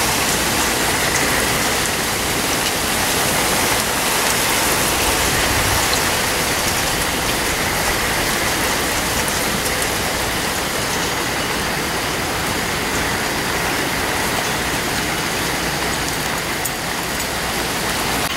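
Steady rain falling on trees and foliage, with gusting storm wind moving through the canopy.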